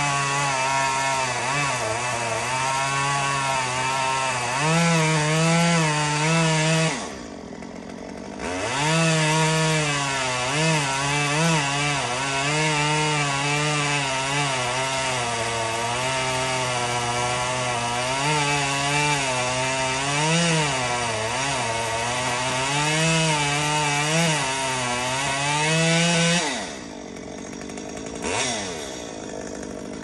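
Chainsaw running near full throttle while cutting into dead pecan wood, its pitch dipping and rising under load. It drops to idle about seven seconds in, revs back up, and falls away to idle again near the end.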